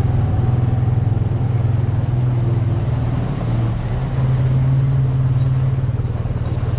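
Motorbike engine running steadily under way, a constant low hum with a brief dip in level about three and a half seconds in before it picks up again.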